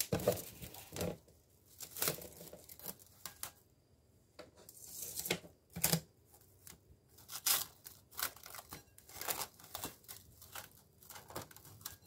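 Plastic cling wrap being pulled off its roll, torn off and stretched over a bowl, in irregular crinkles and crackles with a short lull about four seconds in.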